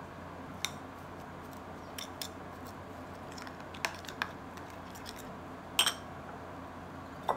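A metal spoon clinking and tapping against a glass bowl while stirring a thick paste, in a handful of separate, irregular clicks, the loudest a quick double clink about six seconds in. A faint steady hum runs underneath.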